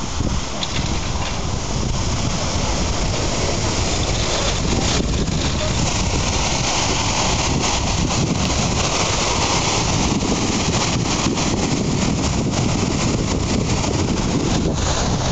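Wind rushing over the microphone of a camera on a moving bicycle: a loud, steady rushing noise with constant small flutters.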